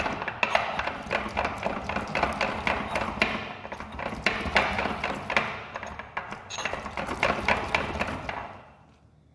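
Ceramic pestle grinding wet fungal mycelium with water in a ceramic mortar: rapid, uneven scraping and knocking of pestle on bowl. It stops shortly before the end.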